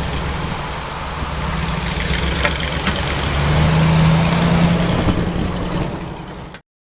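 Truck engine running, its low hum growing louder a few seconds in; the sound cuts off abruptly near the end.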